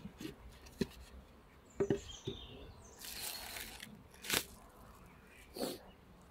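Handling noises as the top cover of a polystyrene miniplus beehive box is lifted off: a few small knocks and scrapes, then a short hissing rush about three seconds in and two sharp clicks later.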